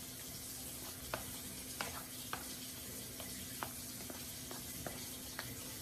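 Tomato sauce simmering and sizzling in a skillet while a silicone spatula stirs it, with light clicks of the spatula against the pan every half second or so.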